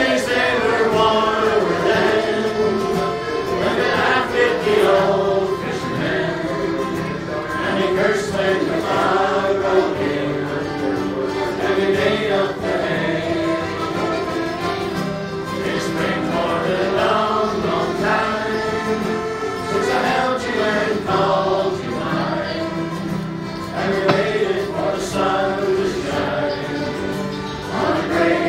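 Accordion and acoustic guitar playing a Newfoundland song while voices sing along.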